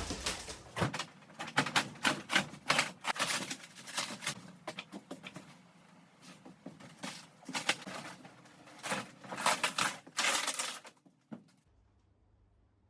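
Quick, irregular knocking and clattering of the caravan's interior timber framing being worked loose, in dense clusters, stopping about eleven seconds in.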